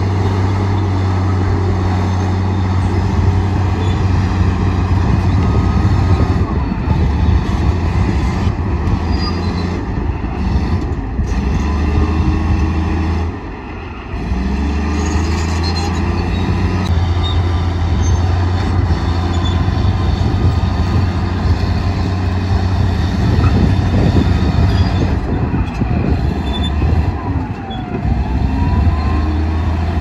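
Crawler bulldozer's diesel engine running hard and steadily under load, dipping briefly about halfway through, with squeals rising and falling over it now and then.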